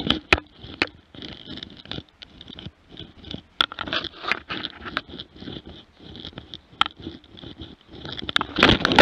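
Irregular rustling and scraping with sharp knocks as fur and harness rub against a camera worn on a dog's back, with a louder burst near the end.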